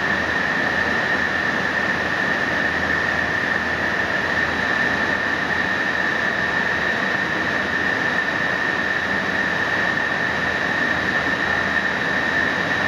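Extrusion lamination plant running: a steady machinery noise with a constant high-pitched whine and a low hum underneath, unchanging throughout.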